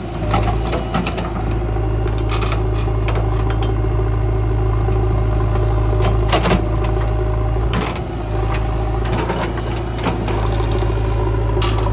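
JCB 3DX backhoe loader's diesel engine running steadily, with scattered clanks and rattles from the machine's metal parts.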